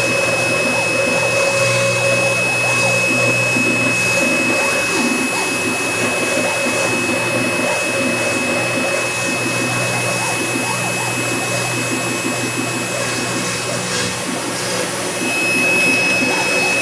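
Mini CNC mill's spindle running with a steady high whine while its bit cuts into cardboard, with an irregular rattle from the cutting and moving machine. The whine fades for a couple of seconds near the end, then comes back.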